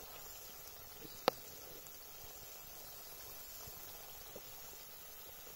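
Faint, steady simmer of curry gravy in an iron kadhai over glowing embers, with one sharp click a little over a second in.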